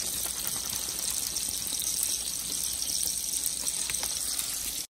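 Steady sizzling hiss of food cooking in a hot pan on the stovetop, with a few faint crackles; it cuts off abruptly near the end.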